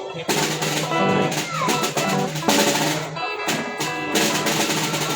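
A band playing music: a drum kit with the snare drum to the fore, with held pitched notes from other instruments.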